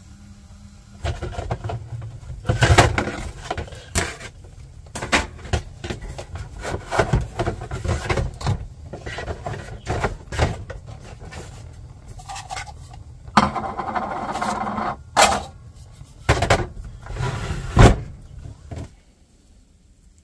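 Kitchen clatter: a run of knocks and clunks from a spatula, frying pan and plastic plates, over a low rumble of handling, with a stretch of rustling about two-thirds of the way in.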